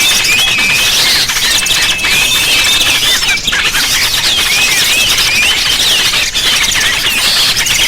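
Dense chatter of many small birds: overlapping high chirps and quick whistled sweeps over a steady hiss. It is a bird-lure (pikat) recording meant to draw small birds in.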